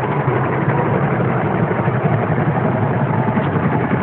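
Helicopter engine and rotor running steadily, a loud, even drone heard from inside the cabin.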